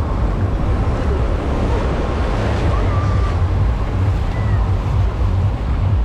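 Sea surf washing up onto a sandy beach, a steady rush, with wind rumbling on the microphone.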